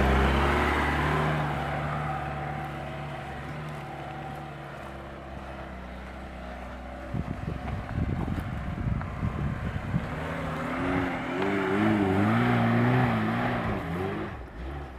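Lada Niva's engine running as the car drives past close by and moves away, fading out. About seven seconds in, wind buffets the microphone with low rumbling gusts, and then the engine revs up and down repeatedly as the Niva climbs a steep sandy slope.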